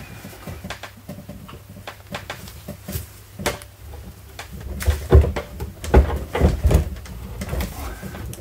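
Wrench turning the forcing screw of a tie rod end puller, drawing a new wheel stud into a wheel hub: a run of small metal clicks and knocks, with a few heavier, dull knocks about five to seven seconds in as the stud is pulled home to seat.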